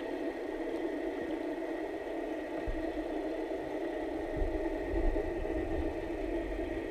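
Underwater ambience heard through a GoPro's waterproof housing: a steady, muffled hiss with a faint steady tone above it. From about three seconds in, low rumbling knocks join as the camera shifts on the seabed.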